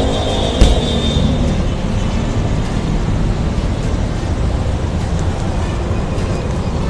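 A sharp click with a low thump as the latch of a plastic motorcycle top box is released and its lid opens, over steady street traffic noise.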